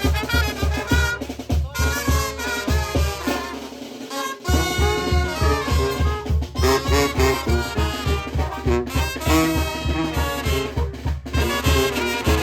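Brass-band dance music with trumpets and a steady, thumping bass beat. The bass beat drops out about three seconds in and comes back with the full band a second or so later.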